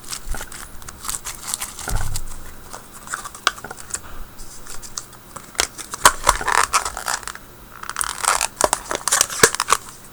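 Slime being squished and worked by hand, giving off irregular crackling pops and clicks, with denser bursts about six and nine seconds in.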